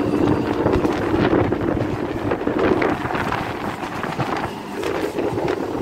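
A moving passenger train, heard from on board: steady running noise with a busy clatter of knocks from the wheels and carriage, and wind buffeting the microphone.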